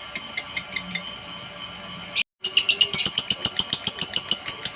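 Lovebird chattering in its long ngekek run: a fast, even string of shrill chirps, about six to eight a second. The run breaks off briefly about a second in, cuts to silence for a moment just after two seconds, then resumes.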